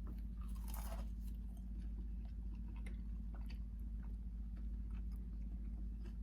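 Close-miked chewing and biting of fried fast food, with scattered small crunches and mouth clicks, over a steady low hum.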